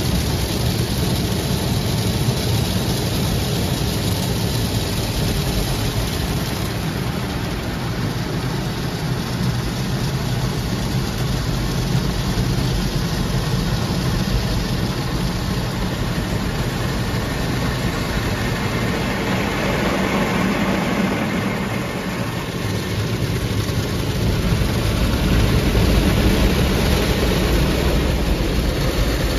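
Automatic car wash heard from inside the car cabin: water spraying and streaming over the windscreen and body over the steady running of the wash machinery, louder near the end as the rotating brushes reach the car.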